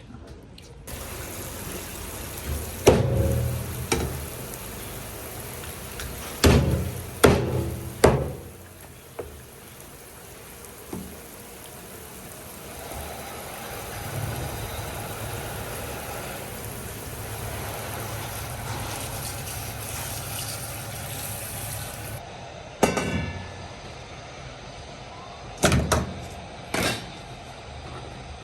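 Kitchen knocks while a grouper is being prepared: one sharp strike, then three about a second apart, and a few more near the end. A steady hiss like running tap water fills the gaps between them.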